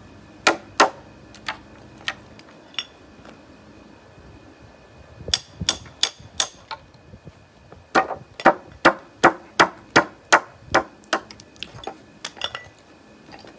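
Hammer striking a chipping hammer set into a landscape log, chiselling out the wood between two saw slits to cut a notch. Sharp knocks come in short runs, the longest a steady string of about ten strikes at roughly two and a half a second.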